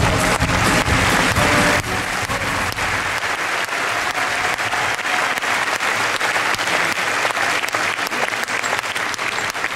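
Large audience applauding steadily, with the act's music fading out about two seconds in.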